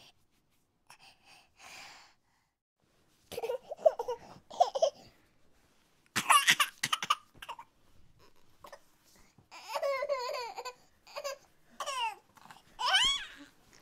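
Kitten mewing and crying in repeated bouts of high, wavering cries, hungry as it tries again and again to suckle from a dog that has no milk for it.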